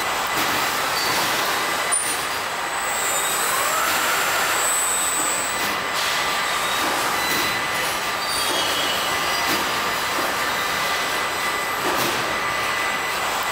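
Car assembly hall machinery noise: a steady mechanical hiss and hum with several thin, steady high tones. A short whine rises and falls about four seconds in, and a few brief high beeps are heard.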